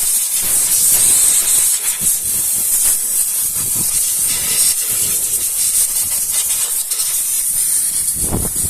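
Steady, high-pitched hiss with faint scattered knocks and handling noises.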